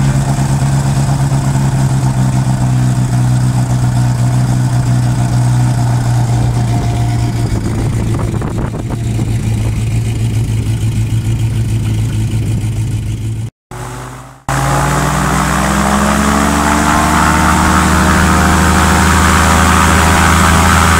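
Airboat engine and propeller running steadily. About two-thirds through the sound breaks off for about a second, then the engine speeds up, its pitch rising as the boat accelerates across the water.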